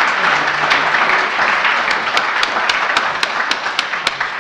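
Audience applauding. The applause thins out to a few separate claps near the end and dies away.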